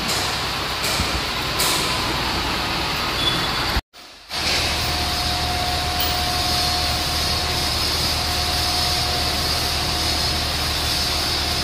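Truck-mounted crane's truck engine running steadily: a low steady hum with a thin steady whine over it, after a brief dropout about four seconds in.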